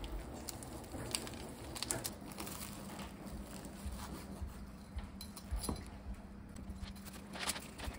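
A ladle clinks against a pot of simmering stew. Then a knife slices through crisp air-fried tonkatsu (breaded pork cutlet): the crust crackles and the blade taps against the cutting board, in scattered short clicks.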